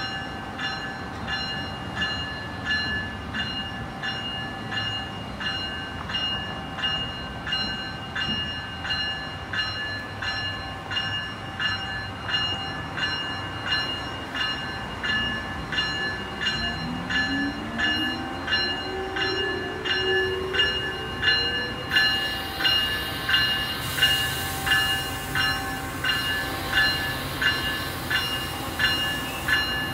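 Bell of an Amtrak ACS-64 electric locomotive ringing steadily, about one and a half strokes a second, as the train creeps into the station. Partway through, a low whine from the locomotive rises in pitch over a few seconds.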